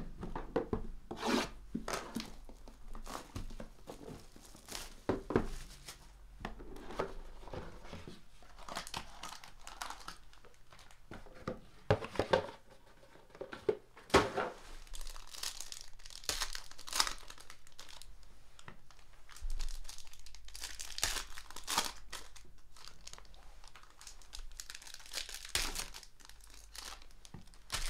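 Foil wrapper of a trading-card pack being torn open and crinkled by hand, amid irregular rustles and light taps of cardboard and cards being handled.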